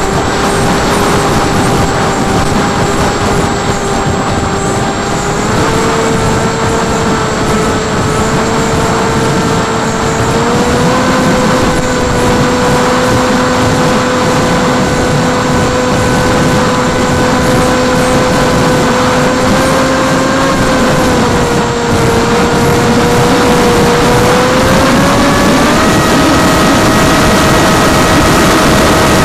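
Electric motor and propeller of a TBS Caipirinha FPV flying wing, heard through its onboard camera: a steady whine over a rush of air noise. The whine steps up in pitch twice in the first half, dips briefly, then climbs again near the end as the throttle changes.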